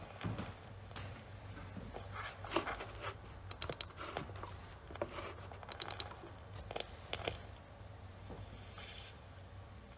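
Faint handling and movement noise in a quiet room: scattered small clicks, knocks and rustles over a steady low hum, with two quick rattling runs of clicks, one around four seconds in and one around six.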